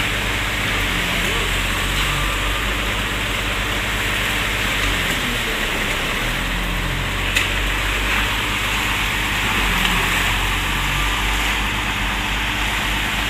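Concrete truck's diesel engine running steadily at a road pour, a constant low drone with a hiss above it. A single short knock about seven seconds in.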